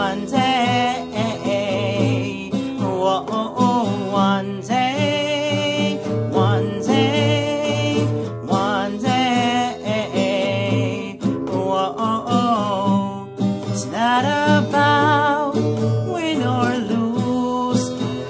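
A man singing a melody with vibrato over a strummed acoustic guitar.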